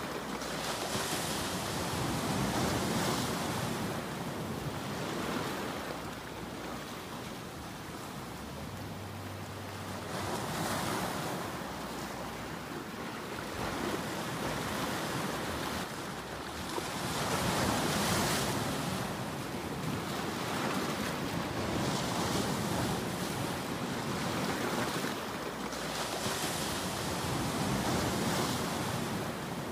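Ocean surf: waves breaking and washing in, the rush swelling and fading every several seconds.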